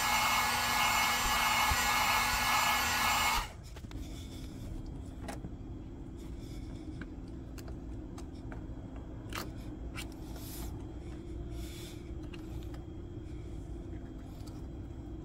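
Electric heat gun blowing hot air onto the door sill plate to soften its adhesive tape, a steady loud rushing that cuts off abruptly about three and a half seconds in. After that there are only a low steady hum and scattered faint clicks as the plate's edge is pried up by hand.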